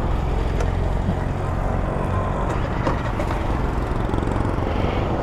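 Motorcycle engine running steadily while the bike is ridden along a road.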